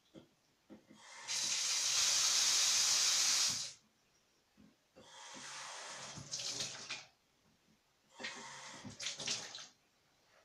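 Water tap running into a basin in three bursts: a long steady run about a second in, then two shorter, more splashy runs.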